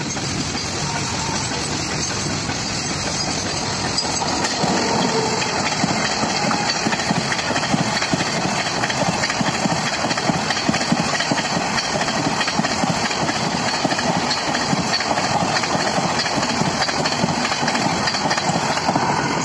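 A WAP-7-hauled express of LHB coaches running past close at speed: a steady loud rush of rolling noise and wind, with a quick clatter of wheels over the rail joints. It gets louder about four seconds in as the train comes alongside, and stays at that level.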